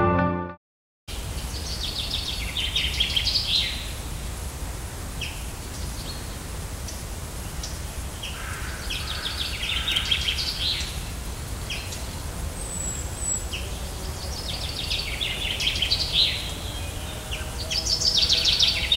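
Common chaffinch song: four short phrases of about two seconds each, several seconds apart, each a rapid series of notes running down in pitch, over a steady low outdoor rumble. A tail of music cuts off in the first half second.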